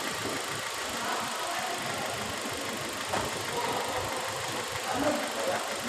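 Hyundai H-1 van engine idling steadily after a restart, with its camshaft position sensor plug reconnected; it now starts easily instead of cranking long. A small click about three seconds in.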